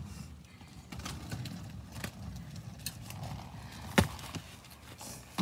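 Roller skate wheels rolling on rough pavement, a steady low rumble, with several sharp clacks; the loudest comes about four seconds in.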